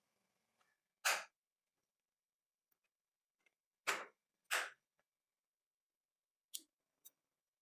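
A few short, sharp clicks of small hard parts or tools being handled, with silence between them: one about a second in, two close together just before the middle, and two fainter ones near the end.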